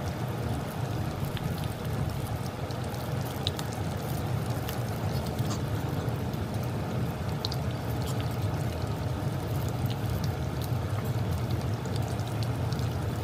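Pork belly frying in oil in a wok: a steady sizzle with scattered small pops and crackles. A steady low rumble runs beneath it.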